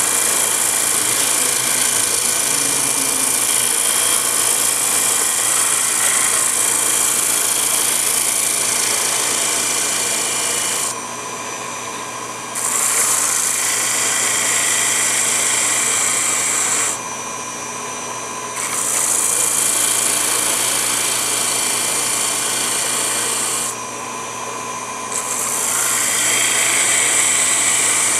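Small electric motor of a mini wood lathe running steadily with a constant whine, under a loud hiss of the spinning wood being sanded by hand. The hiss breaks off three times for a second or so while the motor keeps running.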